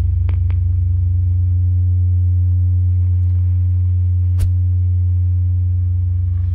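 Deep, steady low drone of an ambient electronic soundtrack, with a few fainter held tones above it. A couple of clicks sound right at the start, and one sharp click about four and a half seconds in.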